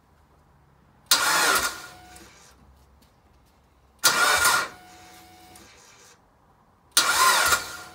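Starter motor cranking the Mitsubishi Evo 8's turbocharged 4G63 four-cylinder in three short bursts about three seconds apart, without the engine catching. Each burst cuts off suddenly and leaves a faint whine that dies away.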